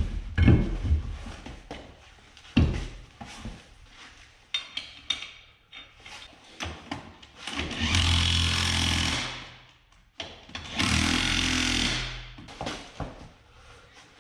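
A power impact wrench running on the skid steer's wheel lug nuts, in two runs of about two seconds each in the second half. Metal clanks and knocks come before and between the runs.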